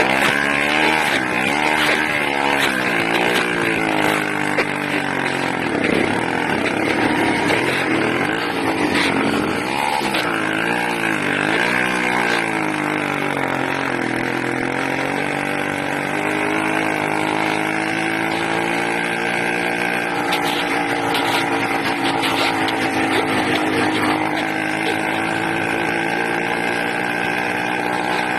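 80cc engine running loud with its speed hunting up and down about once a second, then settling into a steadier, slowly wavering run for the second half. The uneven running is what the owner blames on the carburetor and a leak at the intake manifold.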